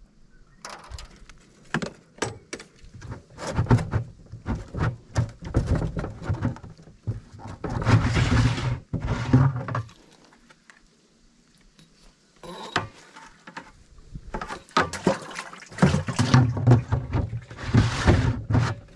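Water splashing and sloshing in several loud bursts as a landing net is dipped and worked in the water beside a metal boat, with sharp knocks and clatter on the hull between them.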